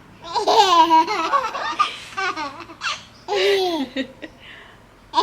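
Baby laughing hard, high-pitched, in three bouts of laughter.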